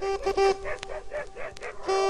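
Short logo sting: music with a dog barking.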